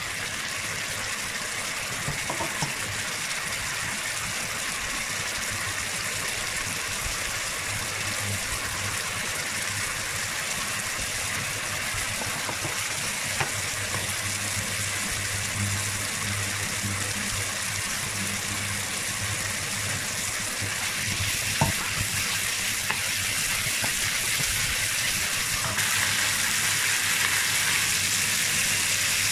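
Diced chicken sizzling and bubbling in its own juices in a wok, a steady hiss with a few light taps of a wooden spatula; the sizzle grows louder near the end.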